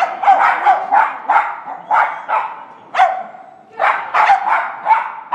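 A dog running an agility course, barking in quick runs of short, sharp, high barks, about a dozen in all with a brief pause about three seconds in, echoing in a large indoor hall.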